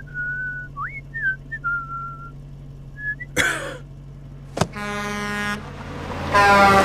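A person whistling a few casual notes, with one quick upward slide. After a brief swish comes a short truck-horn blast about five seconds in, then a louder horn blast near the end that falls in pitch over a burst of noise.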